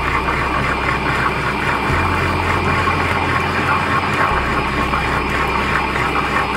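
Tabletop wet grinder running steadily, its stone roller turning in the rotating steel drum as it grinds soaked urad dal into a smooth, butter-like idli batter.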